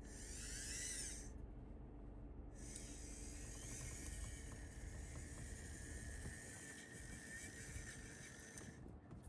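Mini RC truck's small electric motor whining: a short burst of rising and falling pitch at the start, then after a brief pause a longer steady high whine for several seconds that stops just before the end.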